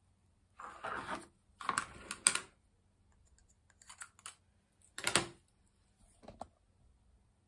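Craft supplies being handled: irregular clicks and rattles in a few short bursts, the sharpest about five seconds in.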